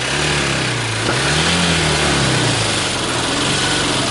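Car engine being revved hard in long swells, its pitch rising and falling over and over. The engine of a wrecked car is being deliberately over-revved to blow it up.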